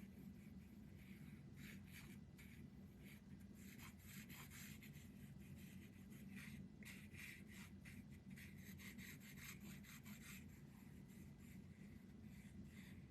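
Faint, irregular scratching and rubbing of small wooden craft pieces being handled on a work table.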